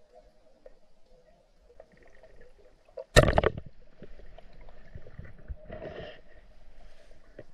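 Underwater sound: one sharp, loud knock about three seconds in, followed by bubbling and gurgling water with knocks and scrapes.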